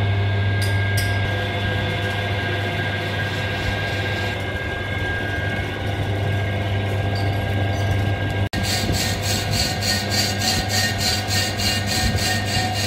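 Metal lathe running with a steady low motor hum while resurfacing a truck flywheel. About two-thirds in, a regular pulsing scrape sets in, roughly three to four times a second, as the carbide cutting bit skims the flywheel's face.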